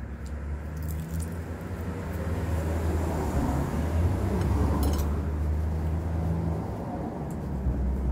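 A motor vehicle's engine running close by: a low, steady hum that grows louder over the first few seconds and eases off near the end.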